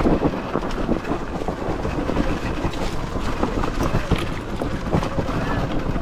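Riding noise from a Sur-Ron Ultra Bee electric dirt bike on the move: wind buffeting the microphone over a steady, uneven rumble with small knocks and rattles.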